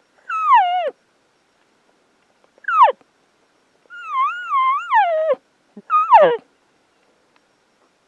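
Four cow-elk mews, each a loud high whistle sliding down in pitch. The third is longer and wavers up and down several times before it falls.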